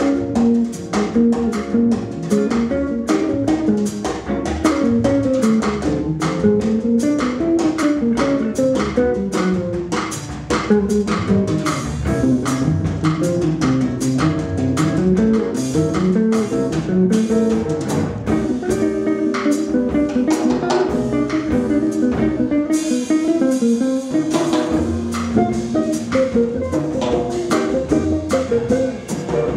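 Small jazz band playing live: guitar running quick melodic lines over double bass and a drum kit with cymbals.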